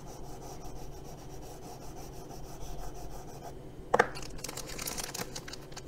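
Charcoal stick rubbing across sketchbook paper in shading strokes, a faint dry scratching. About four seconds in there is a single sharp tap as the stick is set down.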